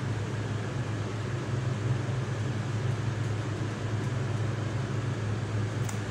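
A steady low hum over an even hiss, from a running motor or machine, with a couple of faint clicks near the end.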